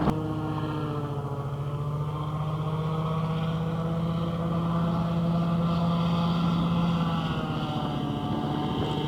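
A boat motor running steadily, an even engine drone.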